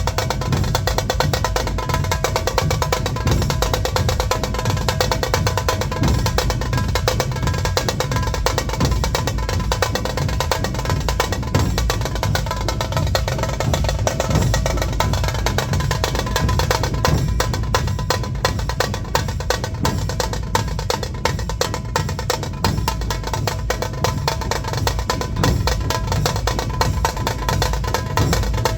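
A dhol-tasha ensemble playing together: the large barrel-shaped dhol drums beat a deep, steady rhythm while the high, sharp tasha drums rattle out rapid stick rolls over them, dense and without a break.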